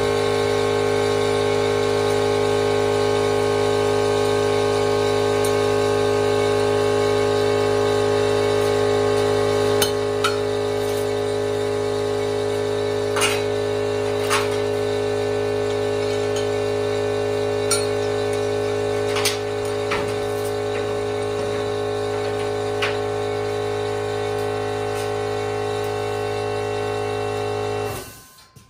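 Small electric shop air compressor running steadily, then shutting off near the end and spinning down as it reaches pressure. A few sharp metallic clanks come over it in the middle, from tie-down straps and chain being handled on a trailer.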